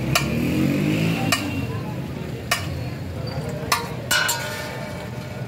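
Steel ladle clinking and knocking against the rim of a large steel nihari pot as nihari is ladled into a plastic bag: several sharp metallic clinks, the one about four seconds in ringing briefly, over a steady low background din.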